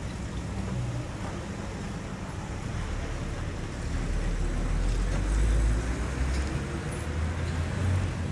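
Street traffic: a steady low rumble of road vehicles that swells about halfway through, as of a heavier vehicle passing close by.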